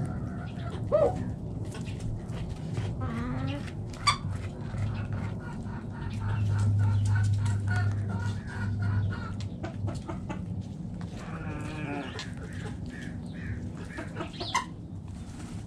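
Backyard hens clucking and giving short calls, with many short taps. A low steady hum swells for a few seconds in the middle.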